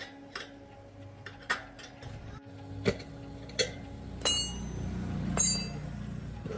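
Metal tools and parts clinking and tapping as they are handled on a workbench, with two ringing metallic strikes about four and five seconds in. A low steady hum runs underneath from about two seconds in.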